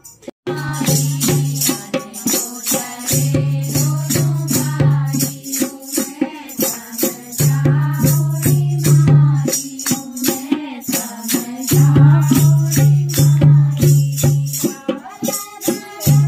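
Music: a song with singing over a steady rattling shaker beat, with low bass notes that come in for stretches of a few seconds.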